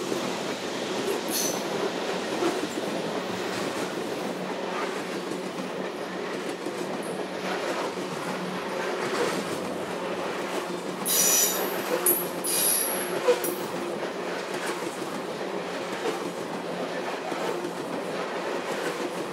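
Canadian Pacific coal train's loaded cars rolling along the rails in a steady rumble. A few short, high-pitched wheel squeals come just past the middle.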